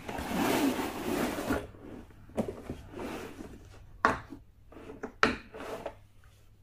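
A tool kit box being opened by hand: a rubbing, sliding sound for a little over a second, then a few separate sharp clicks and knocks as the box and its contents are handled.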